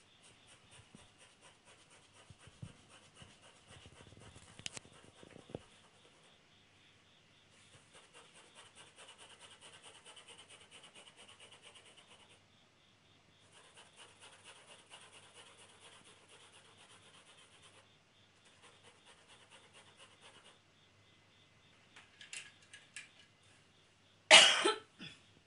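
Graphite pencil hatching on drawing paper: faint, quick repeated strokes in runs of a few seconds with short pauses between. Near the end there is one loud, short cough.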